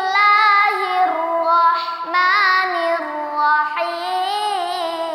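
A young boy reciting the Quran in a melodic chanted style (tilawah), holding long drawn-out vowels with wavering ornamented pitch that steps to a new note every second or so.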